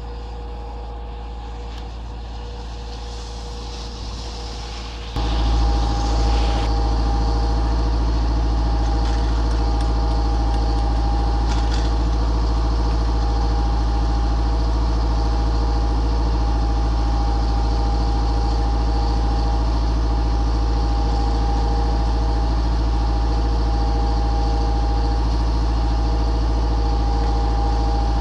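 Diesel engine driving an old Heuss short T-bar ski lift, running steadily at constant speed with a low drone and a steady whine. It becomes clearly louder about five seconds in and then holds steady.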